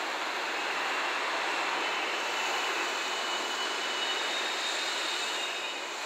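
Slow-moving train of an HD300 shunting locomotive pushing an EF66 electric locomotive and a container wagon on curved track: steady rolling noise of wheels on the rails, with a faint high wheel squeal on the curve.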